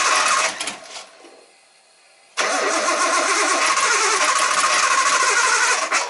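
Nissan RB25DET turbo straight-six turning over in two goes. The first stops about half a second in and dies away. The second starts abruptly, runs for about three and a half seconds and cuts off suddenly. The engine has a misfire that is being chased after a change of plugs and coil packs.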